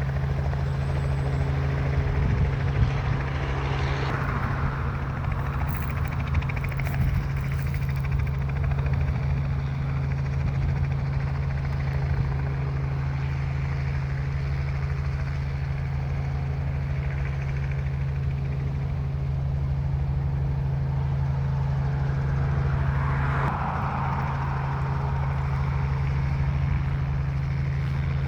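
An engine running steadily, a constant low hum with a rapid fine pulsing beneath it, with a brief swell of higher-pitched noise about four seconds in and again near the end.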